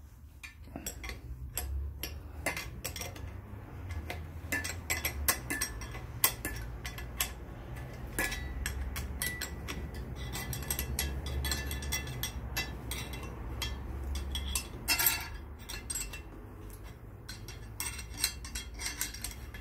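Metal hand tool clicking and clinking on the bolts of a cylinder puller plate as they are turned a little at a time to jack a Suzuki GT750 cylinder block up its studs. The clicks are sharp and irregular, some with a short ring, over a low hum.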